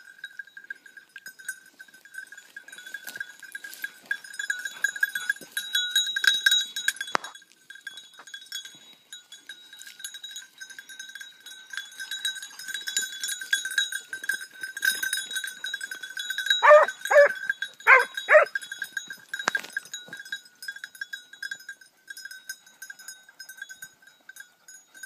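A bell on a hunting hound rings steadily and jingles as the dog moves through the brush. About two-thirds of the way in, the hound gives four short barks in quick succession.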